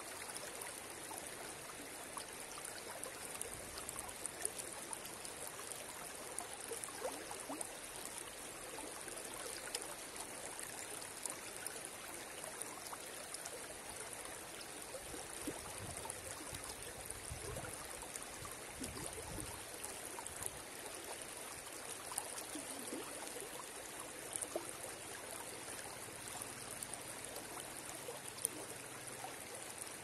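River water flowing: a steady rush with scattered small splashes throughout.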